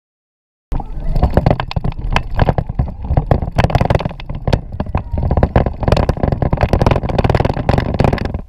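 Plastic battery-powered ride-on toy car driving over rough, grassy ground, heard from on board: dense rattling and knocking over a heavy low rumble. It cuts in abruptly about a second in and drops away right at the end.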